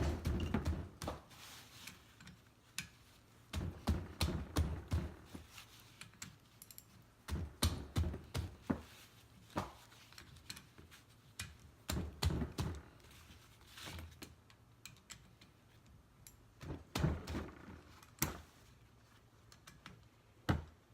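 Hand tools working bolts loose on a semi-hermetic compressor: rapid metallic clicking and knocking in short bursts, about every four to five seconds, with quieter pauses between.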